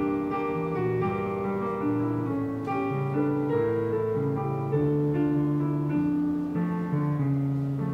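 Background instrumental music led by a piano, playing a run of sustained notes.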